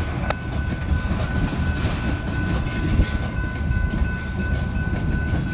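Freight cars of a slow manifest train rolling past: a steady rumble of steel wheels on rail, with a faint steady high tone running through it.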